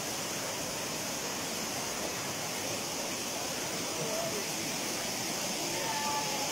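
Waterfall running: a steady, even rush of falling water with no breaks, faint voices in the background.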